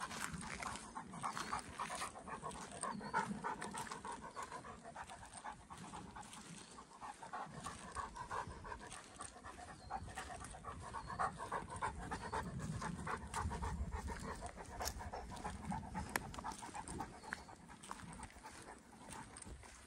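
Greater Swiss Mountain Dog panting steadily and rapidly while walking.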